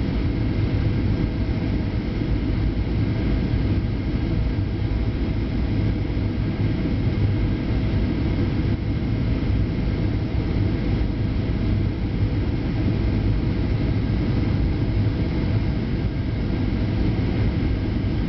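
Steady cabin roar of a Boeing 737 NG descending to land, heard from inside the cabin: engines and rushing air as a deep rumble with faint steady tones above it.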